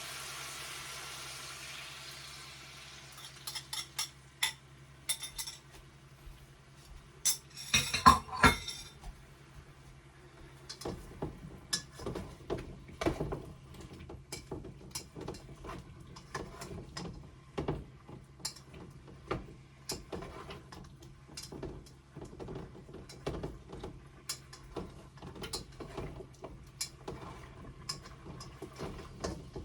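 Food sizzling in a frying pan fades over the first few seconds. Then a cooking utensil clinks and taps against the pan as cucumber and shrimp are stirred, with a loud cluster of knocks about eight seconds in and irregular taps after that.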